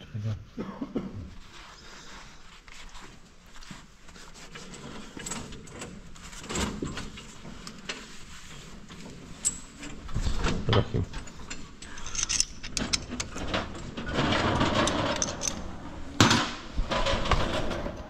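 A cloth rubbing and wiping over a Ford 5000 tractor's painted engine block, with scattered clicks and knocks of handling. The rubbing gets louder in the second half.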